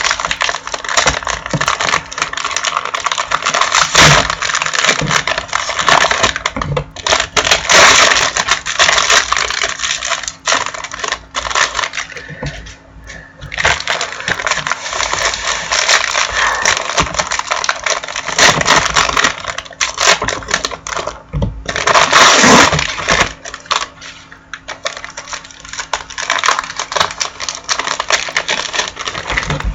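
Foil trading-card pack wrappers crinkling and tearing as packs are opened, with cards shuffled and handled. Dense crackly rustling and clicking, easing off briefly twice.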